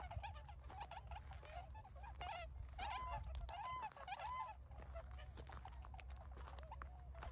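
A flock of Bewick's swans calling: many overlapping short honking calls, with three clear arched calls in quick succession about three to four seconds in, over a low steady rumble.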